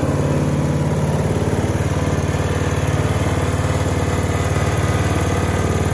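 Honda HSS928 snowblower's single-cylinder GX270 engine running steadily in sub-zero cold after a cold start.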